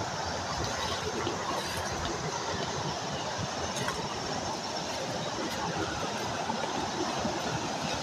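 Water rushing down a waterfall: a steady, even noise with no breaks.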